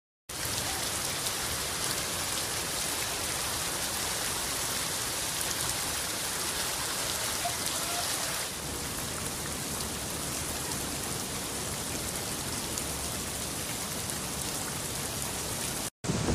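Heavy rain pouring onto a flooded street: a steady hiss of drops hitting standing water.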